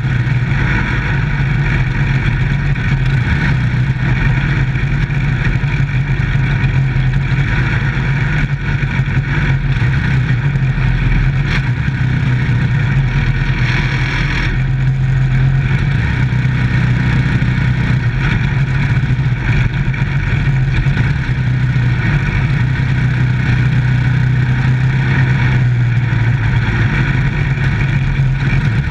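Dirt-track micro stock race car's engine running at a loud, steady pitch on the track, heard from inside the cockpit.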